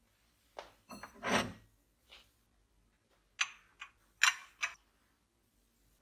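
Porcelain teacups and saucers clinking and knocking against each other and the wooden shelf as they are lifted out of a china cabinet. A string of about nine short clinks and clatters in two clusters, the loudest about a second and a half in and just after four seconds.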